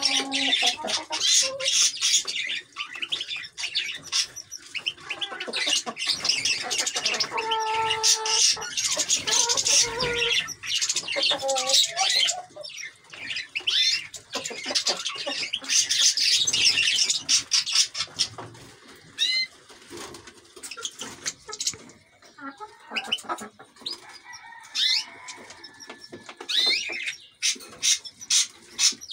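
A group of European goldfinches twittering and chirping in quick, high runs of notes, with short clicks and the odd wingbeat. A few lower calls come in about eight to eleven seconds in.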